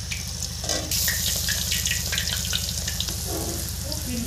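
Besan-battered cauliflower pakoras deep-frying in hot oil in a wok: a steady sizzle full of small crackles that gets louder about a second in, over a steady low hum.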